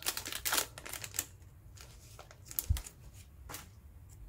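Foil trading-card pack wrapper crinkling as it is pulled open and the cards are slid out, for about the first second. After that come a few soft clicks and a dull thump as the cards are handled.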